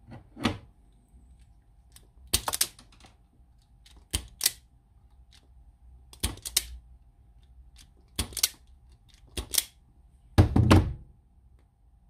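Stanley FatMax automatic wire strippers clicking as the handles are squeezed and spring back open on thin wire. Sharp clicks, often in pairs, come every one to two seconds. The loudest, with a dull thump, comes about ten and a half seconds in.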